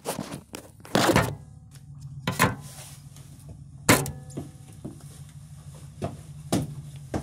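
A phone being handled and set down, then a few separate knocks and thumps, the loudest about four seconds in, over a steady low hum.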